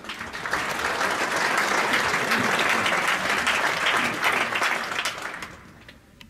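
Audience applauding, building up within the first second and dying away about five and a half seconds in.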